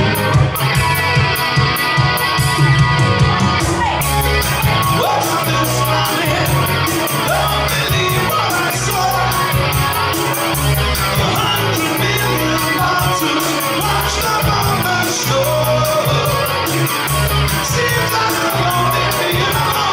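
Live rock music: a man singing while playing an electric guitar, over a steady beat. The singing comes in about four seconds in.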